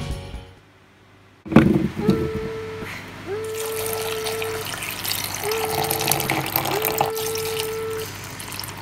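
Water poured in a steady stream into a plastic blender cup over chunks of carrot, starting suddenly about a second and a half in. A steady hum comes and goes several times underneath.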